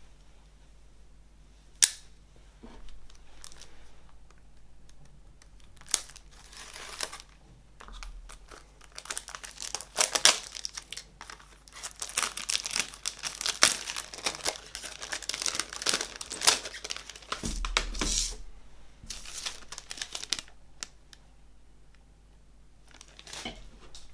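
Plastic wrapping being torn and crinkled off a CD case, with sharp clicks about two and six seconds in and the crinkling densest in the middle.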